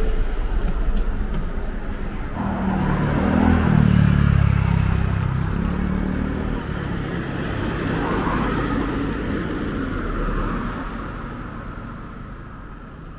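Road traffic: a heavy vehicle's engine accelerating, loudest a few seconds in with its pitch rising, then a car passing around eight to ten seconds in, fading away near the end.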